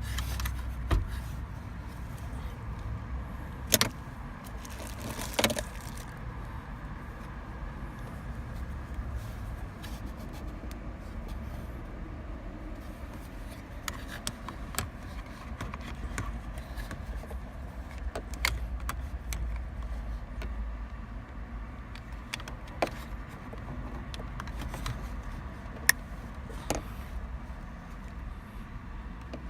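Scattered sharp plastic clicks and knocks from handling a replacement windshield wiper switch and steering-column parts, over a steady low hum.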